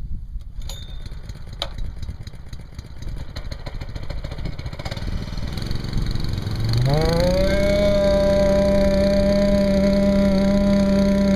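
Vibracorer for sediment coring: a low rumble with wind noise and two clicks, then about seven seconds in the vibrator winds up into a hum that rises quickly in pitch and then holds steady and loud as it drives the core tube down.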